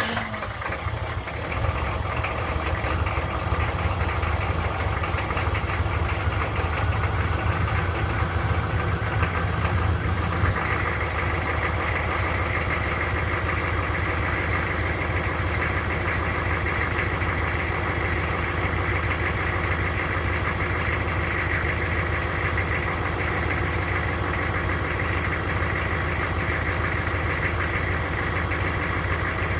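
6.5-litre diesel engine running after a hard start, with a knocking clatter. About ten seconds in its note changes and it settles into a steady idle.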